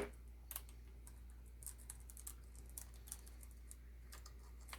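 Faint, scattered metallic clicks of a chainsaw chain's links as the chain is handled and fitted around the guide bar.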